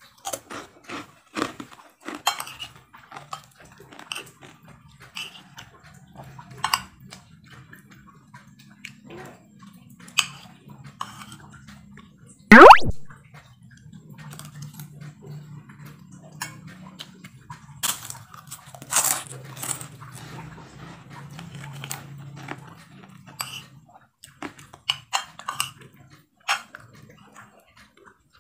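Someone eating with a metal spoon from a ceramic plate: mouth chewing and crunching between short clinks and scrapes of the spoon on the plate. About twelve seconds in comes one very loud, brief rising squeak, the loudest sound here.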